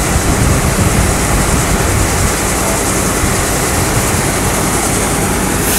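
Rice combine harvester's engine and unloading auger running steadily while threshed rice is discharged into a truck bed: a dense, even machine noise with a low hum underneath.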